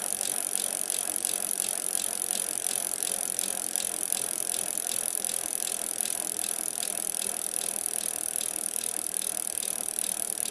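Steady mechanical rattling whirr with a regular beat of about three a second, starting abruptly.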